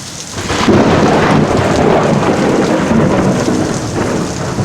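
Heavy rain falling, then about half a second in a loud roll of thunder breaks and rumbles on over it.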